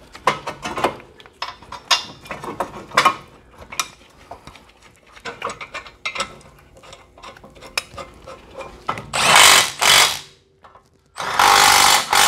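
Cordless impact wrench run in two bursts of about a second each near the end, driving in the two 17 mm caliper bracket bolts. Before that come light metal clicks and knocks as the bracket and bolts are handled and fitted.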